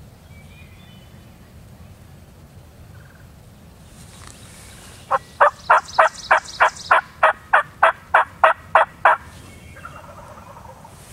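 A series of about thirteen loud turkey yelps, evenly spaced at about three a second. The series starts about halfway through and stops after about four seconds.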